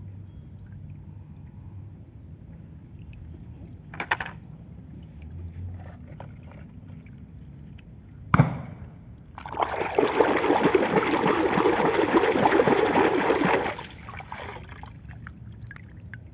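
Water splashing onto toy vehicles as they are washed. Two short knocks come first, then a loud stretch of splashing and running water lasting about four seconds in the second half.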